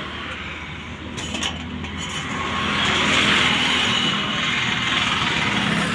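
An engine running steadily, with a hiss that grows louder about two seconds in.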